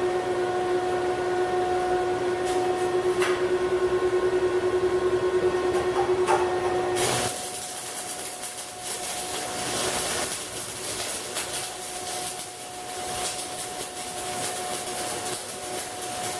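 A 220-volt arc welder on steel: a steady hum for the first seven seconds or so, then the arc strikes and an uneven crackling sizzle of welding runs on.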